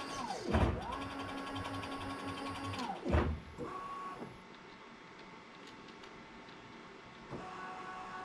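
Stepper motors of a Bridgeport Boss 5 CNC knee mill driving the table: a steady whine that winds down, stops with a thump and winds back up, about half a second in and again about three seconds in. A short move follows near four seconds, then a pause, then another move with a different whine starting about seven seconds in.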